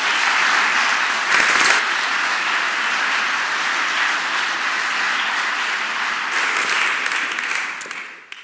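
Audience applauding steadily, fading away near the end and then cutting off.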